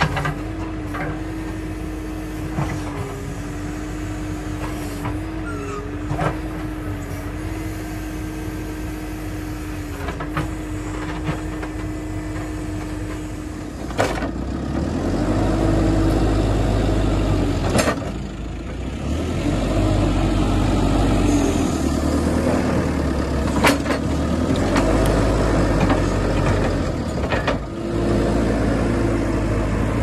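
JCB 3CX backhoe loader's diesel engine running with a steady hum, then working harder and louder from about halfway as the front loader bucket works the soil, with the pitch rising and falling. A few sharp knocks sound over it.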